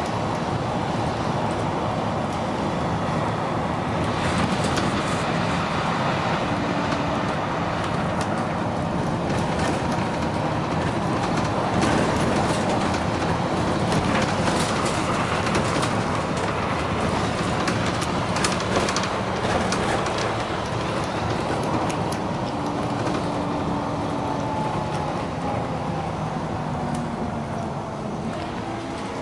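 Dennis Arrow double-decker bus under way, its engine and ZF automatic gearbox running steadily with rattles from the body. Near the end a whine drops in pitch.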